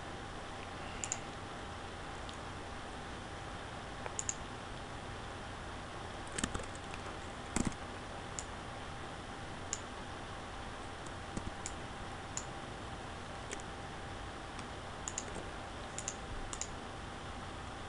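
Scattered computer mouse clicks and key presses, sharp and irregular, some in quick pairs, over a faint steady hum.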